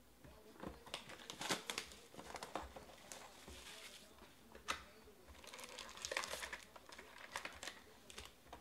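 Foil trading-card packs crinkling and rustling as a Panini Chronicles Draft Picks hobby box is opened and its packs are lifted out, with scattered taps and clicks of cardboard. There is a sharp tap nearly five seconds in.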